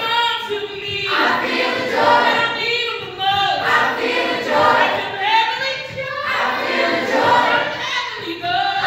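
A mixed group of teenage voices singing a gospel-style song together as a choir, in phrases that break off every second or so.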